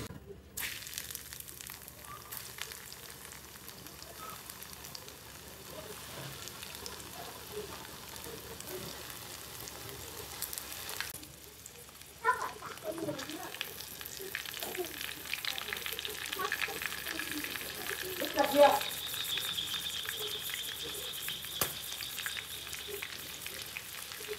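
Panko-breaded silkworms frying in a pan of hot oil: steady sizzling and bubbling, with crackling pops. A louder burst of crackle comes a little past halfway, and wooden chopsticks stir the pieces near the end.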